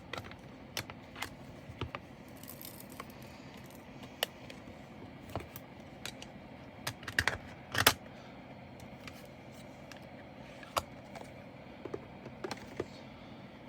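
Scattered small sharp clicks and light rattles of plastic diamond-painting drills being picked off the canvas and handled, with a quick cluster of louder clicks about seven to eight seconds in.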